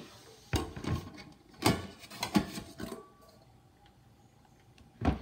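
Knocks and scrapes of a rice cooker's non-stick inner pot being lifted out of its stainless steel body: several bumps in the first three seconds, then a single thump near the end.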